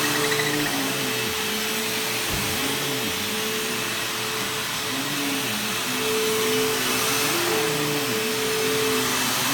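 Bissell bagless upright vacuum cleaner running as it is pushed over carpet: a loud, steady motor hum with a lower tone that wavers up and down.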